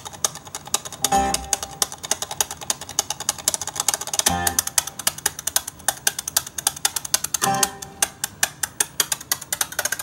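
Guitar music played back through an ORIGIN ORM65 in-ceiling speaker, with quick ticking percussion throughout and a deep note sounding about every three seconds.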